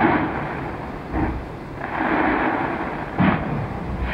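Fireworks bursting in rapid succession, merging into a rolling rumble, with sharper bangs about a second in and just past three seconds.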